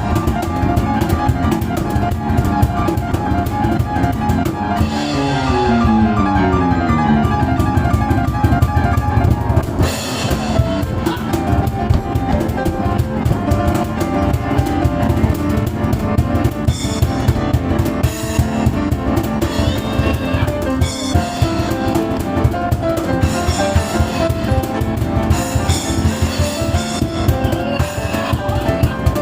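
Live piano and cajon duo playing fast, driving music: a rapid improvised piano passage over steady, hard-hit cajon beats.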